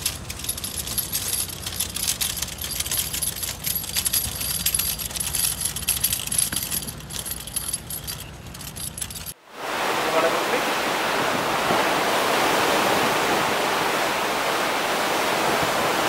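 Quayside sound of a low hum with scattered rattling clicks and a faint high whine. About nine seconds in it cuts to a loud, steady rush of sea water streaming past the hull of a moving ship.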